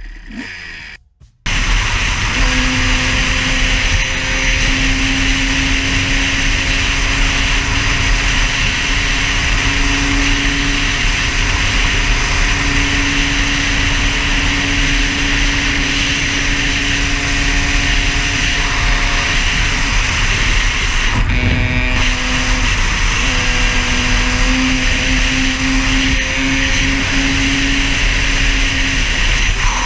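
Kawasaki KDX two-stroke dirt bike running at road speed, its engine holding a steady note under loud wind rush on the microphone. About two-thirds of the way through, the engine note breaks off briefly and then comes back. Before that, music plays for about the first second and cuts to a short silence.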